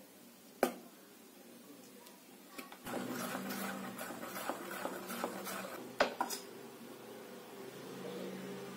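Metal spoon beating thick besan batter in a steel bowl: quick, rhythmic stirring and scraping that grows louder from about three seconds in, with sharp clinks of the spoon against the bowl, once near the start and a couple near six seconds.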